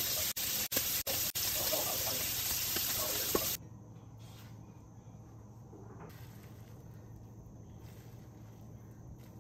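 Egg-battered enoki mushroom pancakes sizzling in oil in a frying pan, the hiss broken by a few brief gaps, for about three and a half seconds; then it cuts off abruptly, leaving a faint low hum.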